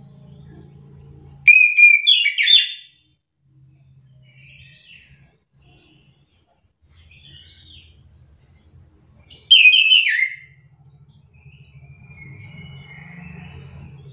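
Chestnut-capped thrush (anis kembang) singing: two loud, brief phrases of fast, high whistled notes, about a second and a half in and again about nine and a half seconds in, with fainter snatches of song between and near the end. A low buzz comes and goes underneath.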